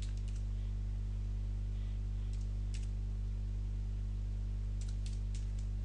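Computer keyboard keys tapped in short runs: a few strokes at the start, a couple about two and a half seconds in, and a quick run near the end. A steady low electrical hum runs underneath and is the loudest part.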